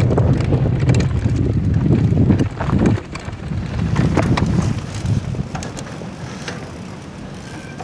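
Wind rushing over a helmet camera's microphone as a mountain bike descends a dry, rocky trail, with the crunch of tyres on gravel and the clatter of the bike and stones. The wind rush drops away about three seconds in, leaving the tyre crunch and scattered rattles.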